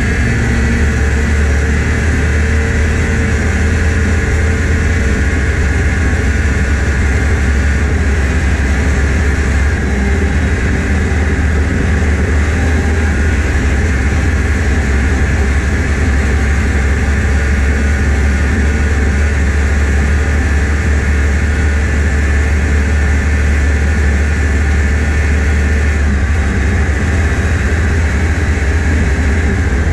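1989 Yamaha Phazer snowmobile's 485 cc two-stroke twin running steadily at half throttle as the sled cruises over snow, with a strong low rumble and no big changes in revs.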